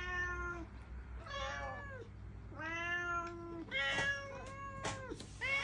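A domestic cat meowing about six times in a row, begging for food, with the third meow held longest.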